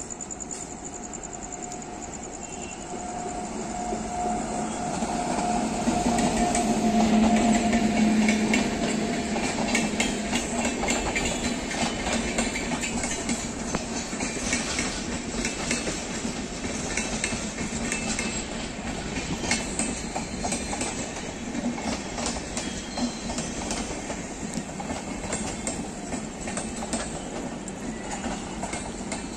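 Electric-hauled express train with red LHB coaches running through a station at speed without stopping. The locomotive's hum swells and peaks as it passes, about six to nine seconds in, then the coaches go by with a steady rush and the clatter of wheels over rail joints.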